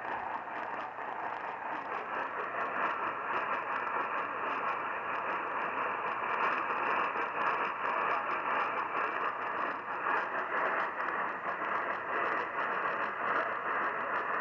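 AM radio receiver tuned to a weak, distant station: a steady hiss and static in a narrow, muffled band, with the station's audio buried in the noise.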